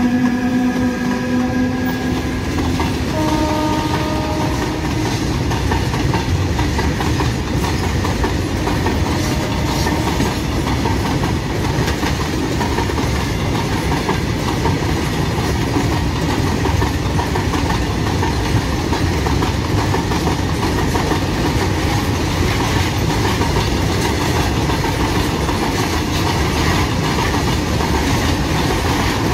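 Horn of a WAG-12 electric freight locomotive sounding as it pulls away, a steady note that stops about two seconds in, with a fainter, slightly higher note a second later. After that comes the steady rumble and clickety-clack of a long line of open-top freight wagons rolling past over the rails.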